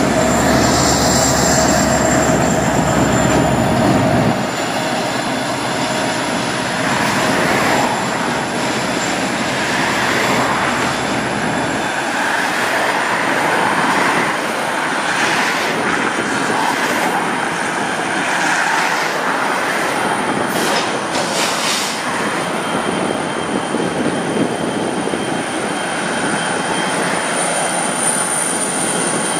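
Freight cars rolling through a rail yard: steel wheels squeal in a long, high, steady tone over the rumble of wheels on rail. The deep rumble drops away about four seconds in, and several sharp clanks come between about fifteen and twenty-two seconds in.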